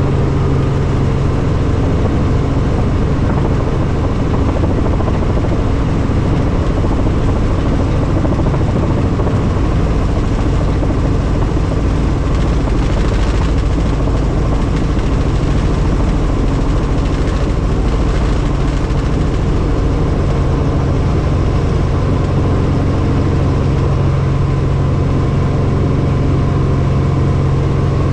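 Helicopter engine and rotor running steadily: a loud, even drone with steady low tones.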